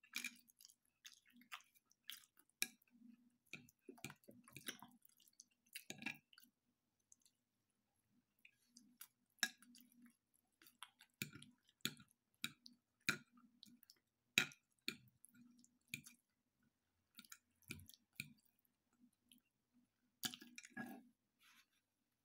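Faint chewing while eating pasta, chicken and vegetables, with irregular sharp clicks scattered throughout.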